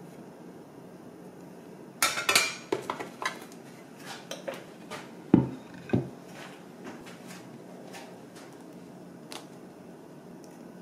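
Kitchen handling sounds: a ceramic plate clattering on a kitchen scale as it is picked up, then, about halfway through, two solid knocks as a wooden cutting board is set down, with a few light clicks between.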